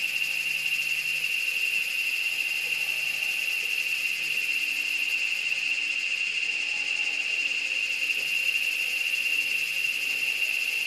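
Steady high-pitched insect chorus, a continuous shrill trilling.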